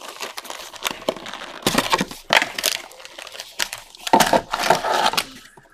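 Cardboard trading-card box torn open and the foil-wrapped card packs inside crinkling as they are pulled and handled, in several bursts of tearing and rustling, the loudest near the end.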